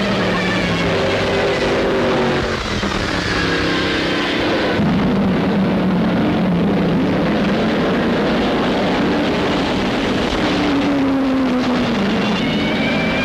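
1930s Grand Prix racing car engines running at high revs, their whine rising and falling as the cars pass. The sound changes abruptly about five seconds in, and one engine's pitch falls away near the end.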